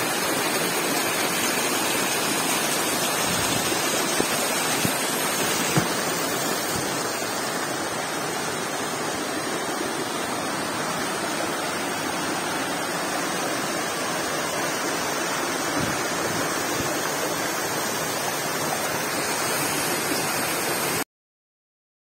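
Steady rush of water from a waterfall pouring over rocks, with a couple of faint knocks a few seconds in. The sound cuts off abruptly near the end.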